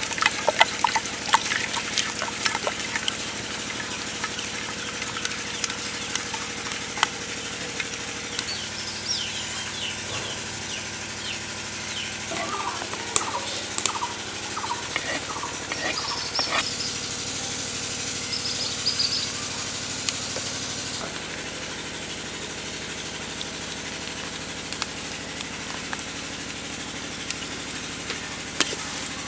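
A spoon stirring and scraping thick mango pulp in a metal pot for the first few seconds, then birds chirping and fowl calling over a steady outdoor background, with scattered sharp clicks.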